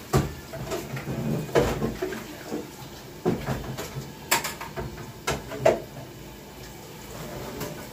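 Kitchen handling sounds: a series of sharp knocks and clatters, about half a dozen spread over several seconds, as things are moved about on the counter.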